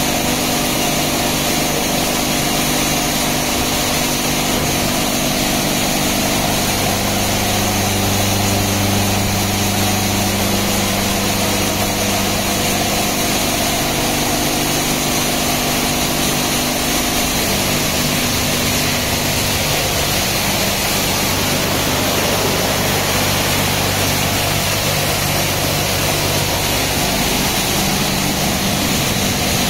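Touchless automatic car wash running: a steady low motor hum, which shifts slightly partway through, under a constant hiss of high-pressure water spraying the car.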